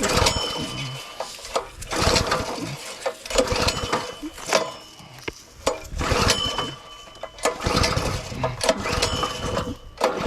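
Small gas engine of a Simpson 3100 PSI pressure washer being pull-started: repeated yanks on the recoil starter about every one and a half to two seconds, each turning the engine over without it catching. The engine is choked on a cold first start.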